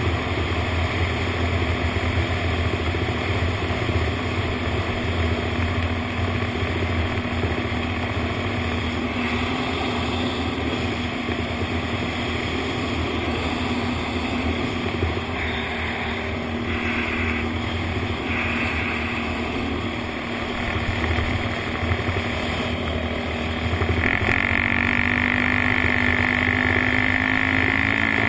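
Honda TRX450ER quad's single-cylinder four-stroke engine running while under way, over a steady hiss of wind and tyres on gravel. About 24 seconds in it gets louder and its note slowly rises as the quad speeds up.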